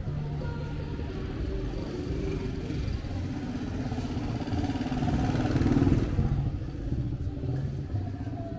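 A vehicle engine passing, growing louder to a peak about six seconds in and then fading, over a steady street rumble.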